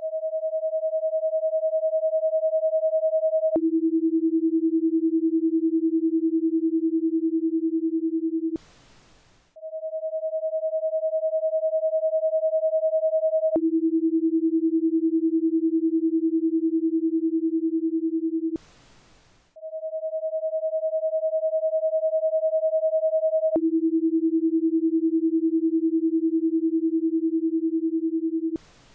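Paced-breathing guide tones in a ten-second cycle. A steady higher tone for about four seconds cues the in-breath, and a steady lower tone for about five seconds cues the out-breath. Then comes about a second's pause with only faint hiss, and the cycle runs three times.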